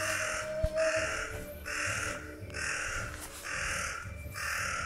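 A crow cawing over and over, about six caws at roughly one a second.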